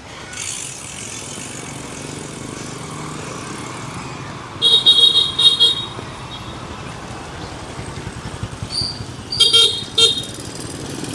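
Road traffic at a crossroads with vehicle horns beeping: a quick run of short toots about four and a half seconds in and another near nine and a half seconds, over a steady hum of passing engines.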